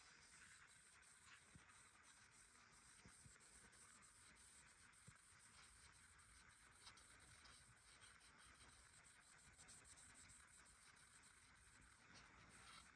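Faint, steady rubbing of a cloth along a wooden hammer handle as it is wiped and polished.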